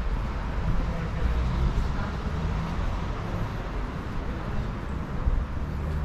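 City street ambience: a steady low rumble of traffic, with faint voices of passers-by.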